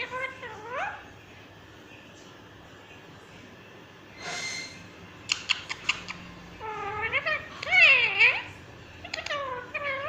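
Green ringneck parakeet calling in short, wavering cries that rise and fall in pitch. They come in a burst at the start and again from about seven seconds in, loudest around eight seconds. A brief hiss comes a little after four seconds, followed by a quick run of sharp clicks.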